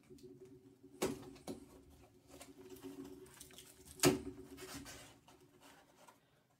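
Cardboard shipping box being opened by hand: the flaps rustle and scrape, with a sharp snap about a second in and another about four seconds in as the flaps are pulled open. A faint steady hum runs underneath, and the sound cuts to dead silence near the end.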